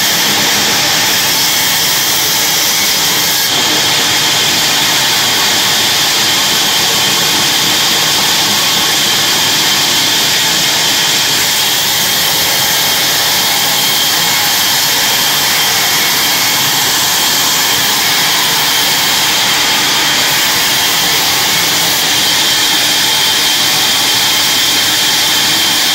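Large vertical log bandsaw running and sawing a log lengthwise into slabs: a loud, steady hiss from the blade in the wood.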